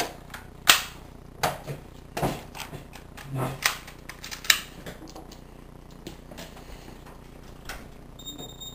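Sharp plastic clicks and clacks of toy pistols being handled, their slides pulled back by hand: a handful of separate snaps in the first five seconds, then quieter handling noise.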